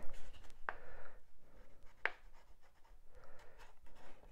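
Ballpoint pen scratching across a sheet of drawing paper as a line is drawn, with a couple of short sharp clicks near the start and about two seconds in.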